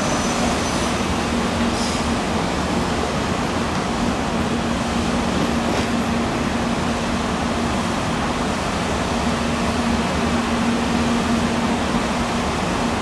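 Steady hum of a 923-series Doctor Yellow Shinkansen standing at the platform, its cooling fans and onboard equipment running, with a low steady tone that fades out for a few seconds in the middle and then returns.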